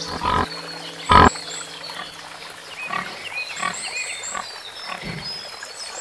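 An animal giving two short loud calls in the first second and a half, then softer short calls, with small birds chirping a few times in the middle.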